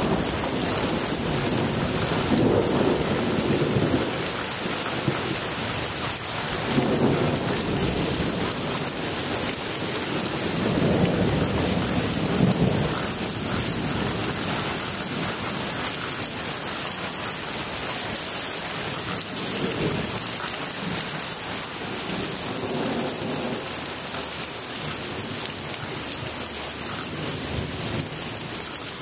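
Heavy thunderstorm rain falling steadily, with several low rumbles of distant thunder swelling and fading, the strongest about twelve seconds in.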